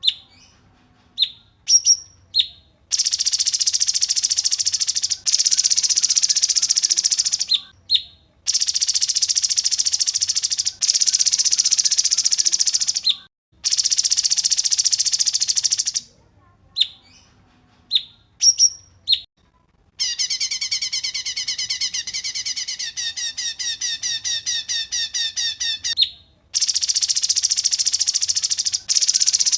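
Songbird song played as a training recording for young birds: long, dense, buzzy trills of about two seconds each, broken by short sharp high notes, and from about twenty seconds in a quick run of rapidly repeated notes for about six seconds.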